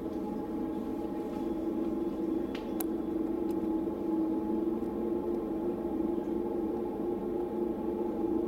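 Steady machine hum with an unchanging pitch, and a couple of faint clicks about three seconds in.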